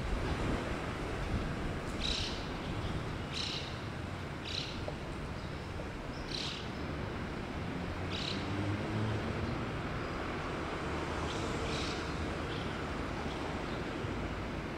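Steady low rumble and wind noise as a freight train approaches from far down the line. Short high-pitched animal calls come every second or two, bunching near the middle and again near the end.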